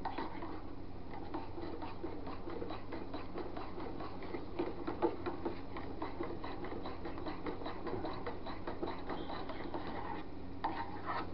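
Faint, rapid, irregular clicking and scraping of a thin rod worked through a small saucepan of hot liquid soft plastic (plastisol), over a low steady hum.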